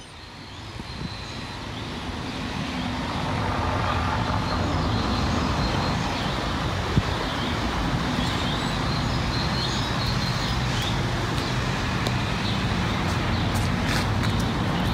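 Steady road traffic noise, a rumble of passing vehicles, fading in over the first few seconds and then holding level.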